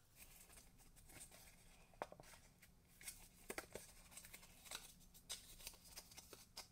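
Faint rustling and creasing of cardstock being folded by hand along its score lines, with a few soft crackles scattered through.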